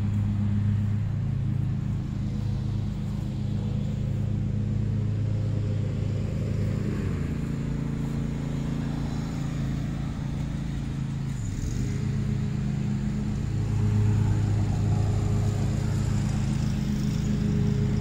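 A motor vehicle engine running with a steady hum. Its pitch shifts about seven seconds in, then dips and climbs back near twelve seconds, as when the engine slows and picks up again.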